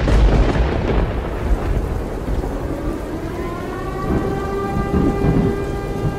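A sudden thunderclap opening into rolling thunder over steady heavy rain. About three seconds in, a layered tone slides up and then holds steady over the storm.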